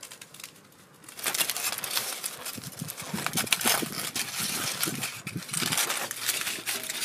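Dense crinkling and rustling with many small clicks, starting about a second in and running on without a break.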